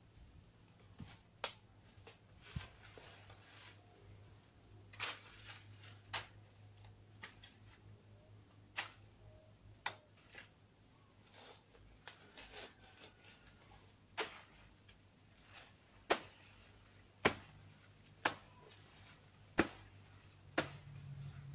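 Sharp knocks of a blade striking into the trunk of a banana plant being cut down, one roughly every second, irregularly spaced.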